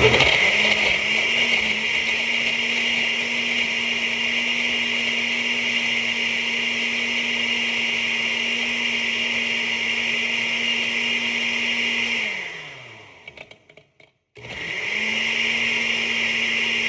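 A countertop blender running at speed as it blends a smoothie of banana, ice, milk and protein powder: a steady motor hum and whir. About twelve seconds in it winds down with a falling pitch and stops, then starts up again a moment later.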